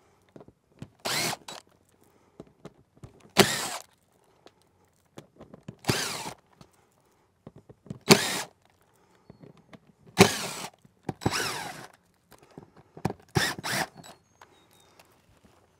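DeWalt 20V cordless drill backing screws out of a metal pipe boot's flange on a metal roof panel, in about eight short bursts of under a second each, the motor's pitch rising and falling in each run.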